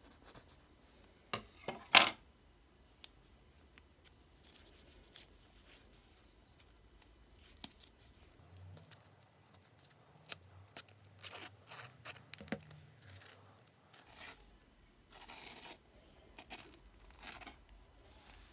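Packaging of a mini panettone being opened: a couple of sharp snaps, the loudest about two seconds in, then a run of irregular crinkling and tearing.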